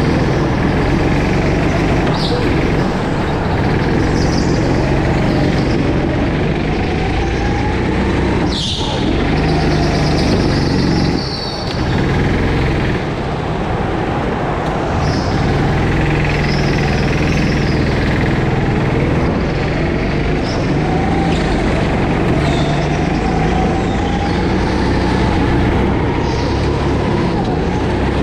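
Go-kart engine running hard, heard from the driver's seat, its pitch slowly rising and falling with speed.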